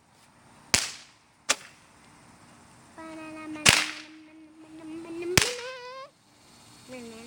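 Small fireworks going off in four sharp cracks, the third the loudest. Between the last two cracks a child's voice holds a long call that rises in pitch near the end.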